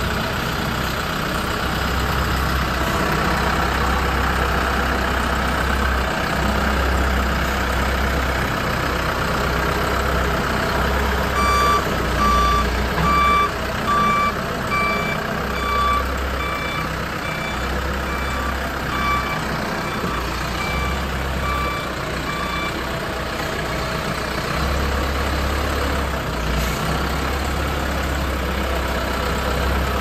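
Backhoe loader's diesel engine running steadily. About a third of the way in, its reversing alarm starts beeping at an even pace for roughly ten seconds, then stops.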